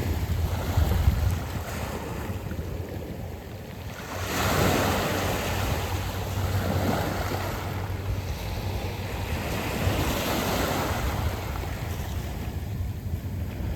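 Sea waves washing in over a pebble beach, the surf swelling about four seconds in and again about ten seconds in, with wind rumbling on the microphone.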